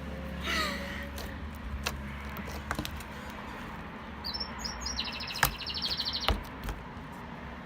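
A bird chirping, with a fast high trill lasting about two seconds from a little past four seconds in, among scattered sharp clicks.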